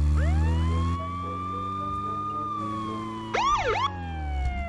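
Police car siren winding up into a long wail that holds, then slowly falls, broken near the end by two quick up-and-down whoops, over a steady low hum.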